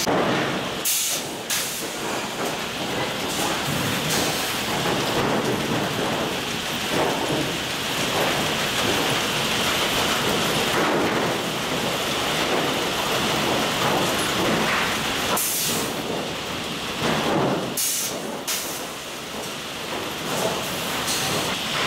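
A 12-foot sawmill lumber stacker running: a loud, steady mechanical din of machinery and conveyor chains, broken by sharp knocks a few times, near the start and in the last third.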